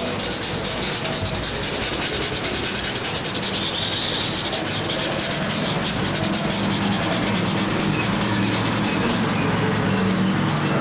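Soft graphite pencil shading on drawing paper: rapid, even back-and-forth strokes giving a steady scratchy rubbing.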